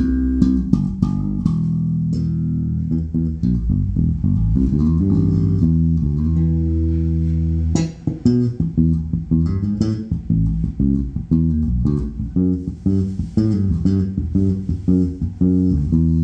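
2007 Warwick Corvette Taranis five-string electric bass with an Aguilar OBP-2 active preamp, played fingerstyle through a bass amplifier. Long held low notes give way about eight seconds in to a faster line of crisply plucked notes.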